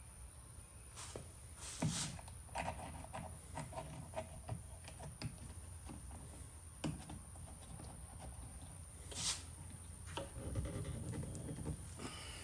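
Scattered light clicks, taps and rustles of small parts being handled while fitting a clamp-on mirror's clamp, rubber shim and hex-head screws.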